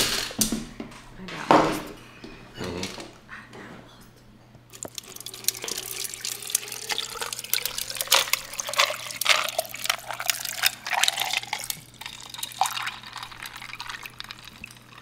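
Water sloshing, glugging and dripping in a Stanley tumbler held up close to the microphone, with many small splashy clicks and a tone that slowly rises over several seconds. A few sharp louder sounds come in the first two seconds.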